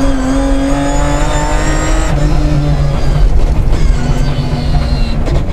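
In-car sound of a BMW 325 Group A rally car's straight-six engine under hard acceleration: its pitch climbs for about two seconds, breaks at a gearshift, then pulls again, with a brief lift about three and a half seconds in.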